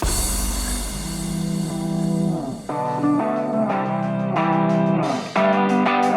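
Background music led by guitar, with a steady rhythm of changing notes.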